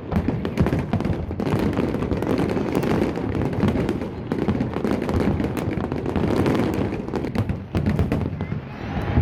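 A fireworks display going off in a continuous barrage: many shells bursting in quick, overlapping booms, with sharp cracks between them and no let-up.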